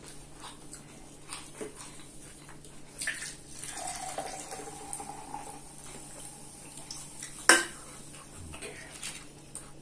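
A drink poured from a can into a clear cup, the liquid running with a steady tone for about a second and a half, with a click just before it. Scattered light clicks of a fork against a bowl, and one sharp knock on the table near the end, the loudest sound.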